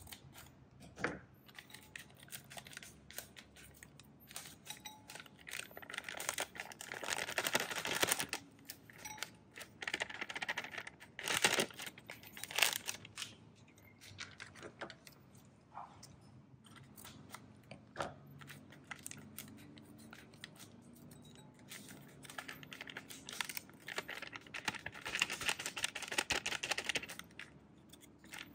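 Scissors snipping open plastic sachets of curry powder, and the packets crinkling and rustling in several bursts as the powder is shaken out into a bowl, with small clicks and taps in between.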